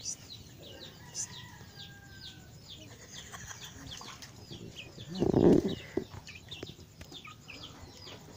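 Chicks peeping: short, high, falling chirps repeated over and over. About five seconds in there is a brief splash of water in a basin as a fish is washed.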